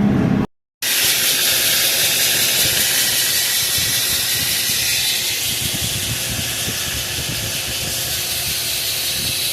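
Combine harvester running in the corn: a steady loud hiss with a low rumble underneath. The sound drops out for a moment about half a second in.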